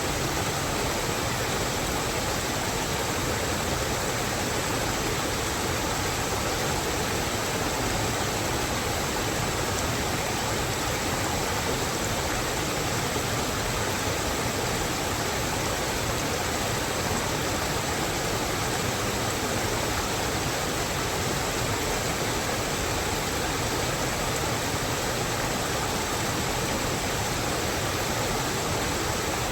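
Steady rain falling in a forest, an even, unbroken hiss.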